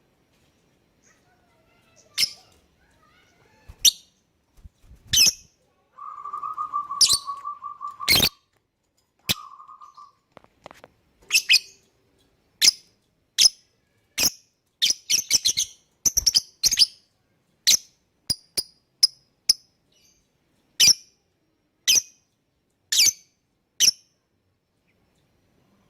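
Lovebird giving short, shrill chirps one at a time at irregular intervals, with a quick cluster of them about two thirds of the way through. A lower, steady note sounds for about two seconds near the end of the first third and briefly again just after.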